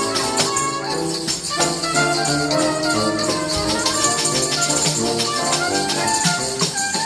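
Music with a quick, steady rattling percussion beat over held, changing chords.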